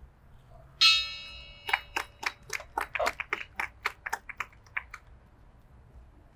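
A memorial bell struck once, ringing out for about a second after the strike. A rapid, uneven run of sharp clicks follows for about three seconds.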